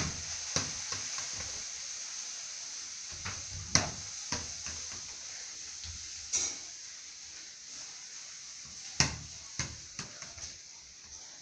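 A small football kicked by bare feet and bouncing on a concrete floor: a string of sharp thuds at uneven intervals, some in quick pairs, over a steady hiss.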